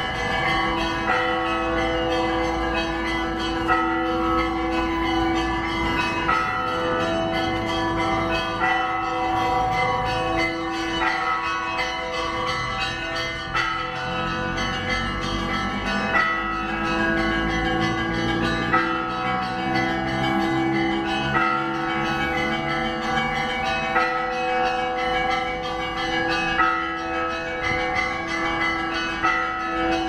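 Orthodox church bells ringing a zvon: a lower bell hums steadily while several smaller, higher bells are struck over and over in a rhythmic pattern.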